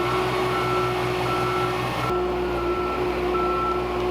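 A heavy machine's warning beeper sounding at a steady pace, about three beeps every two seconds, over its engine running.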